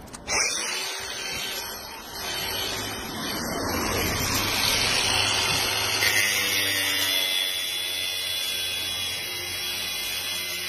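Angle grinder cutting through the steel of a wheel clamp on a car wheel. It starts up just after the beginning and runs steadily with a high whine, growing louder from about two seconds in as the disc bites into the metal.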